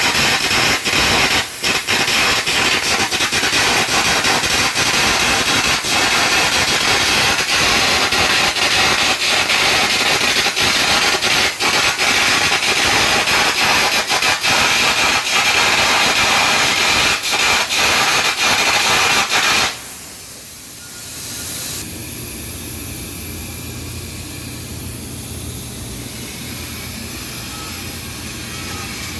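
Air carbon arc gouging: a loud, crackling, hissing arc full of sharp pops that stops suddenly about 20 seconds in. After it stops, a quieter steady hiss with a low hum goes on.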